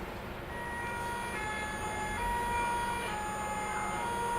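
Electronic two-tone siren sound from a children's sound book's speaker, alternating between a higher and a lower note about once a second.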